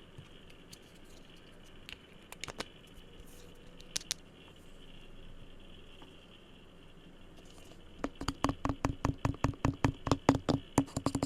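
Fingers tapping and touching an object: faint light scratching and a few soft clicks, then about eight seconds in a fast, steady run of taps, each with a low ringing note.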